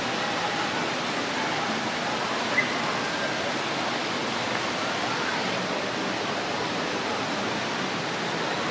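Steady rushing of falling water from the resort's pools and water features below, with one brief sharp tick about two and a half seconds in.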